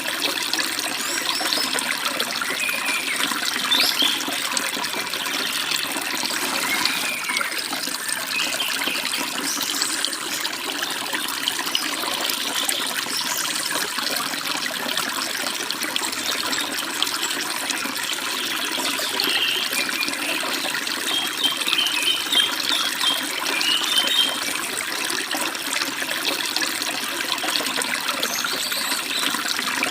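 Stream water babbling steadily over rocks, with small birds chirping now and then above it.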